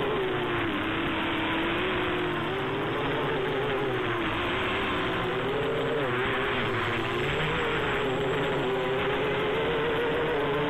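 Quadcopter's motors and propellers buzzing in flight, the pitch drifting up and down as the throttle changes.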